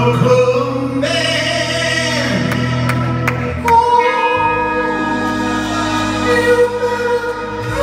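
Live rock band playing with a lead vocal and harmony singing over held chords, heard from the audience in a concert hall; the chord and bass change about four seconds in.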